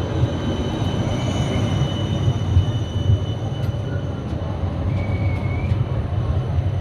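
Tram running on its rails: a steady low rumble with thin high-pitched squealing tones above it, one rising out briefly about five seconds in, and a few faint clicks.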